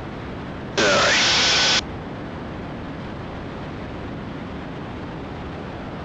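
Steady cabin noise of a Cessna T310R twin in flight, an even hiss as picked up through the headset intercom feed. About a second in, a louder burst of hiss lasts about a second, as the intercom opens briefly.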